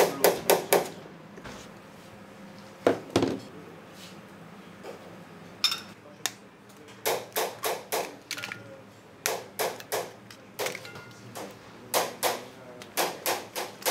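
Bursts of sharp knocking strikes, five to seven in quick succession at about four a second, each burst followed by a pause of a second or two.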